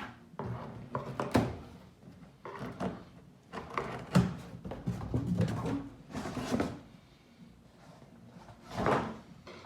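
Large cardboard box being opened and its packaging handled: irregular scraping and rustling of cardboard, with several sharp knocks.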